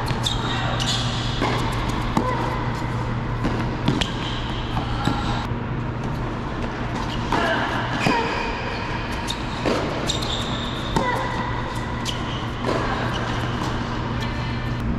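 A tennis rally on an indoor hard court: racket strikes and ball bounces come every second or so, with short squeaks of sneakers on the court surface, over a steady low hum.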